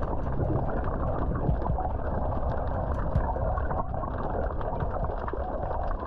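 Seawater sloshing and gurgling close to the microphone beside a small paddled craft, a steady muffled wash with many small irregular splashes and clicks.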